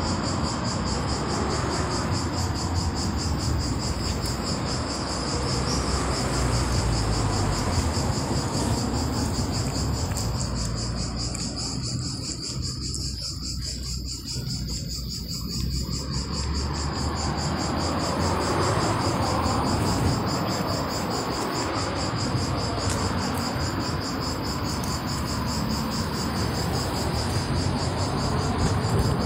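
A steady, high-pitched insect trill made of rapid pulses, over a low background rumble.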